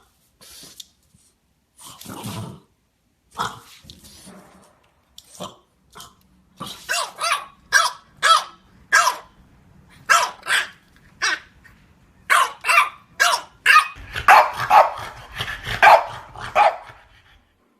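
French Bulldogs barking: a few scattered single barks, then a quicker run of two or three barks a second from about a third of the way in. The barks are densest in the last few seconds, with a low rumble underneath.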